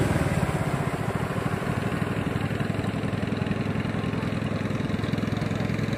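Small engine of a klotok racing boat running steadily, with a fast, even beat.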